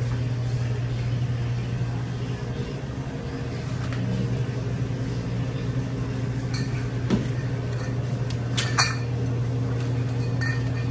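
Steady low hum, as from a running machine in a small room, with a few light clinks in the second half.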